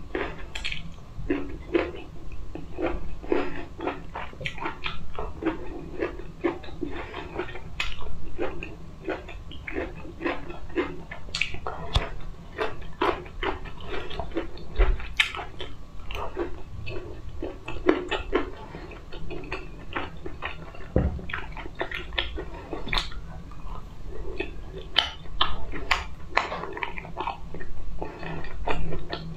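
Close-miked eating sounds: chewing with many small wet mouth clicks, smacks and crunches, coming irregularly throughout.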